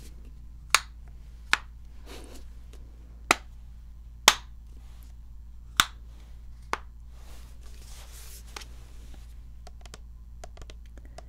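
Plastic shampoo bottle being tapped and handled, heard as six sharp, irregularly spaced clicks over about the first seven seconds. After them comes a soft rubbing sound, then a few faint ticks near the end.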